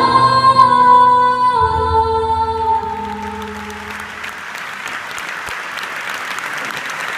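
Music ending on long held sung notes that die away about four seconds in, as audience applause starts about three seconds in and carries on.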